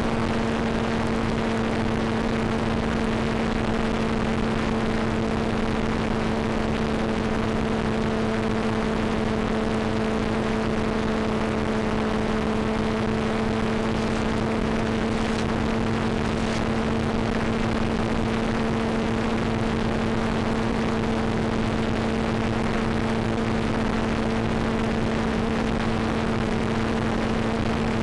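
Steady hiss with a constant low two-tone hum from the audio channel of an analog FPV video downlink, as recorded at the ground station. A few faint ticks come about halfway through.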